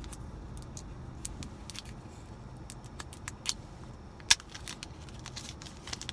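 Plastic packaging crackling and a string of small clicks as a Fitbit Versa smartwatch is handled and freed from its clear plastic holder, with one sharp, louder click about four seconds in. A low steady hum runs underneath.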